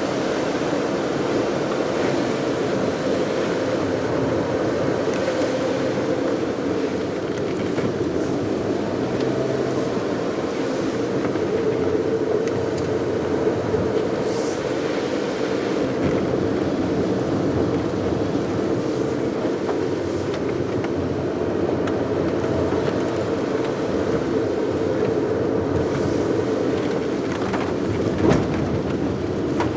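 Steady road noise of a car driving: tyres and engine running evenly, with a few faint ticks and one brief thump near the end.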